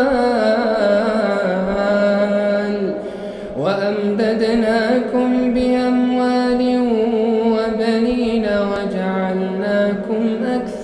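A man reciting the Quran in a slow, melodic tajweed chant, holding long drawn-out notes. There is a short pause for breath about three seconds in, then the next phrase starts on a rising note.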